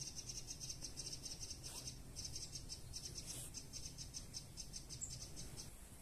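Faint, high chirping in quick, even pulses, several a second, with a short break about two seconds in; it stops shortly before the end. A faint rising squeak sounds about two seconds in.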